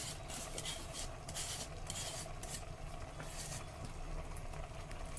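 Chopped wet gongura and sorrel leaves are pushed by hand off a perforated aluminium lid into an aluminium pressure cooker. The leaves make a run of short, irregular rustles and scrapes against the metal, which thin out after about three and a half seconds.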